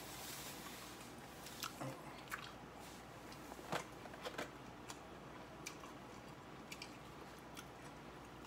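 Faint chewing and crunching of a Southwest salad, with scattered soft clicks and crunches spread through.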